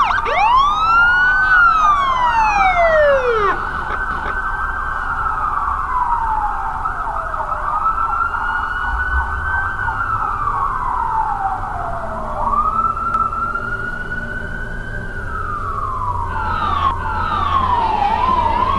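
Siren of a Ghostbusters Ecto-1 replica car wailing, each cycle rising quickly then falling slowly over a couple of seconds, repeating about every five seconds. There are a few quicker overlapping sweeps at the start, and faster downward sweeps near the end.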